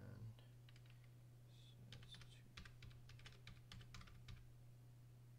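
Faint typing on a computer keyboard: a few keystrokes, then a quick run of them from about two seconds in. A steady low electrical hum runs underneath.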